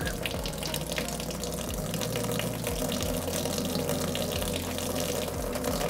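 Wine running steadily from a tank valve through the hose into a centrifugal pump, with the pump's low steady hum underneath, as the wine is racked off its fining sediment.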